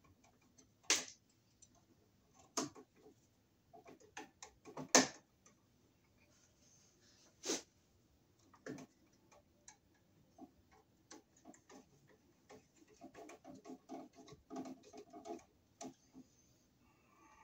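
Needle-nose pliers and copper wire clicking and tapping as wire ends are bent into hooks for a single-pole switch's screw terminals. The sharpest clicks come about a second in and about five seconds in, with a run of small quick clicks near the end.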